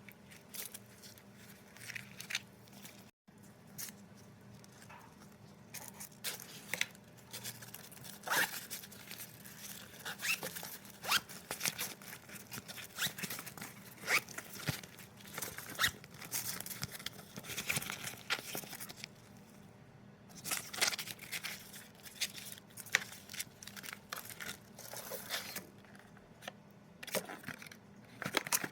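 Packaging being handled and opened by hand: irregular rustling, crinkling and tearing with small clicks and taps throughout. The sound cuts out for an instant about three seconds in.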